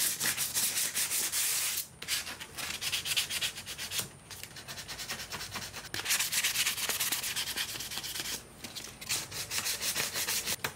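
800-grit sandpaper scrubbed by hand over a chrome-plated metal mesh radiator guard in quick back-and-forth strokes, a rasping scuffing with a few short pauses. The surface is being scuffed so that paint will stick.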